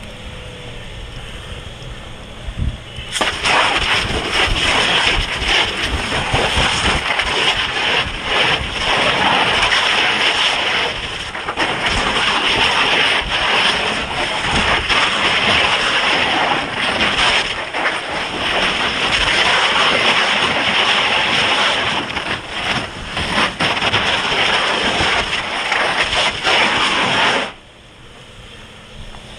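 Fire hose nozzle opened about three seconds in, spraying water with a loud steady hiss, then shut off suddenly near the end.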